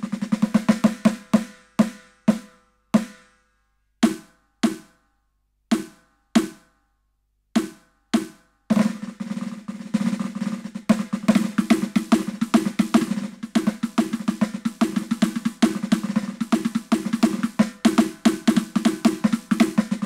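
Snare voice of a Roland TD-17KVX electronic drum kit struck over and over: a quick run of strokes, then single hits spaced half a second to a second apart, then from about nine seconds in a fast continuous roll.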